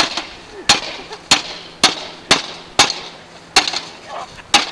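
A bat smashing a computer's case, eight hard strikes at about two a second with short pauses, each a sharp crack of breaking plastic and metal.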